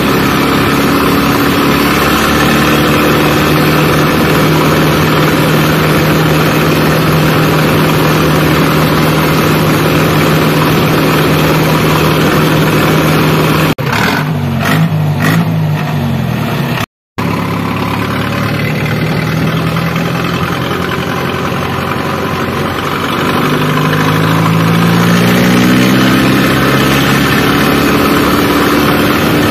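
Mahindra Arjun 605 tractor's four-cylinder diesel engine running hard through a tall upright exhaust stack, heard from the driver's seat at road speed. The sound cuts out for a moment just past halfway, and the engine climbs in pitch as it accelerates a few seconds before the end.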